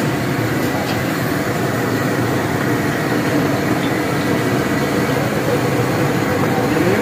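Masala-coated fish deep-frying in a wide wok of hot oil: a steady bubbling sizzle over a constant low rushing noise.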